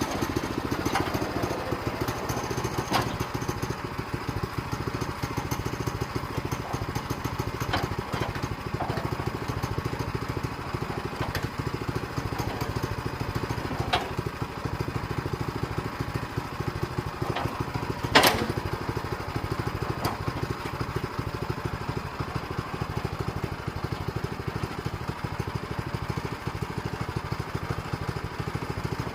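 Small engine running steadily, with a few scattered clicks and one sharp knock a little past halfway.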